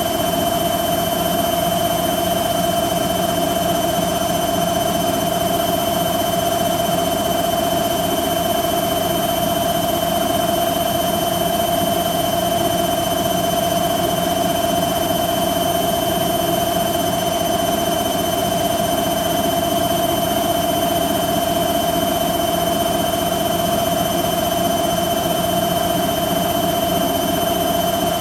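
Hoover Quattro AE130 washing machine spinning at full speed in its 1300 rpm final spin: a steady high motor whine over the drum's rumble, holding constant throughout.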